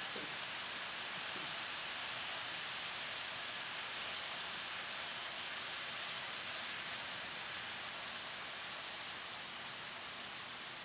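Steady hissing rush of an HO-scale model freight train's wheels rolling along the track as the cars pass, easing off near the end as the last cars go by.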